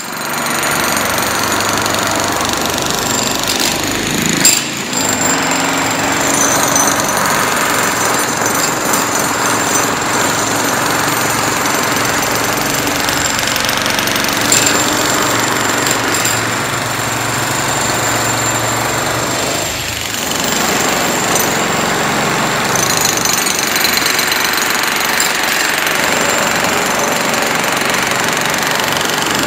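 Corded electric demolition hammers chiselling into a cracked concrete floor slab: a loud, continuous hammering rattle.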